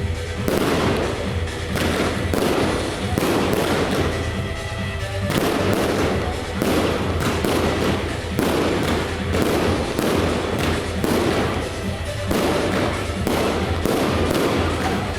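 Fireworks display: a dense, continuous run of bangs and crackles from aerial shells, with music playing alongside.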